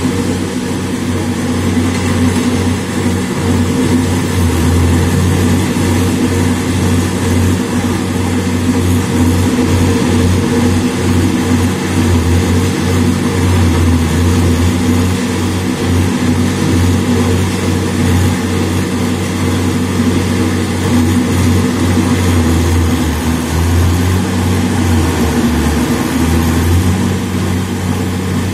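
A road roller's diesel engine running steadily and loudly, with a constant low hum that keeps the same pitch throughout.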